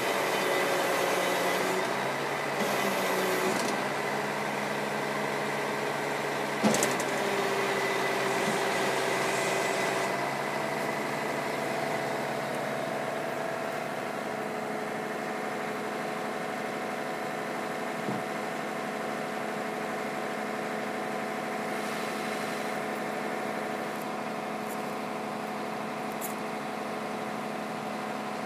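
Flatbed tow truck's engine running steadily with its hydraulics working as the bed tilts and slides back. The pitch shifts a couple of times, stepping up about ten seconds in, and there is one sharp knock about seven seconds in.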